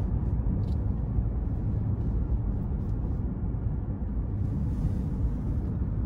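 Steady low road rumble heard inside the cabin of a moving car.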